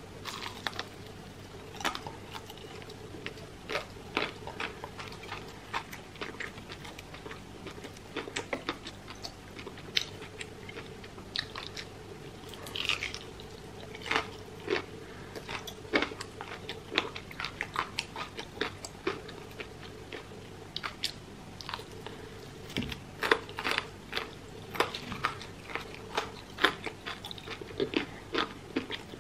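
Close-miked crunching bites and chewing of crispy fried chicken coating, many irregular crackles and wet chews, over a faint steady hum.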